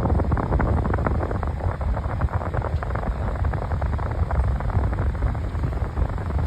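Lasko 12-inch oscillating table fan running on high speed: a loud, steady rush of moving air, with its blast fluttering on the microphone.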